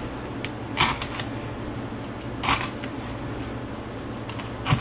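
Chef's knife slicing a red bell pepper into strips on a plastic cutting board: three sharp knocks of the blade meeting the board, spaced about a second and three-quarters apart, with lighter ticks between.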